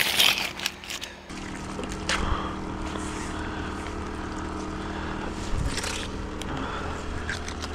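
A fishing magnet on a rope being hauled up and dragged over a stone quay edge, with a few knocks and scrapes, over a steady low hum.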